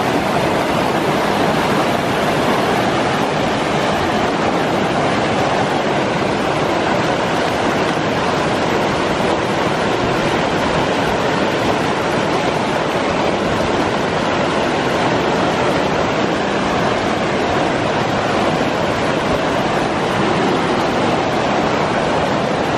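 Mountain stream rushing over rocks close by: a loud, steady whitewater rush that does not change.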